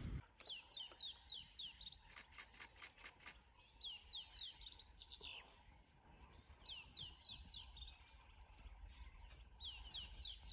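Faint birdsong: phrases of five or six quick, high notes, each sliding down in pitch, repeated several times. A run of about seven sharp ticks comes two to three seconds in.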